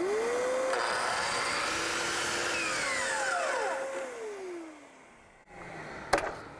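DeWalt sliding compound miter saw's motor whining up to speed, running steadily while the blade cuts a shallow kerf across a 3/4-inch MDF board, then winding down in a falling whine about four seconds in. A single sharp knock near the end.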